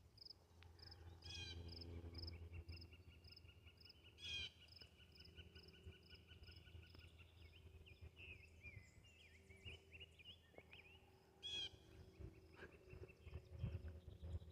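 Faint wild birdsong. A high chirp repeats about twice a second throughout, a rapid trill runs for a few seconds, and three louder short calls come about a second in, about four seconds in and near the end.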